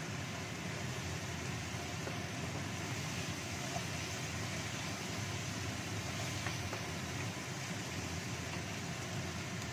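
Spice paste frying in a wok, a steady sizzling hiss, while a wooden spatula stirs and scrapes it around the pan, with a faint scrape or two.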